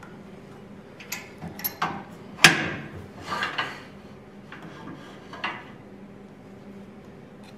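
Metal clicks and clanks as a wood lathe's tool rest is slid and clamped into position beside a mounted bowl, the loudest clank about two and a half seconds in.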